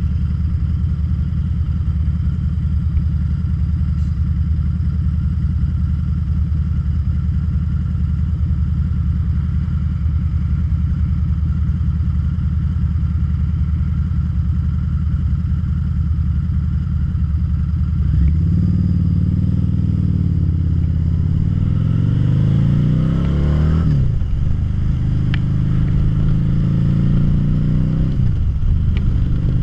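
Harley-Davidson V-Rod Muscle's liquid-cooled V-twin idling steadily, then, about 18 seconds in, pulling away. The engine note rises as it accelerates and drops sharply at each of two upshifts.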